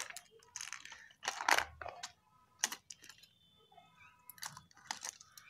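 Clicks and rattles of a clear plastic compartment box being opened and handled, with small crochet hooks being picked out of it; the clicks are irregular and scattered, with a few faint ringing tones in the middle.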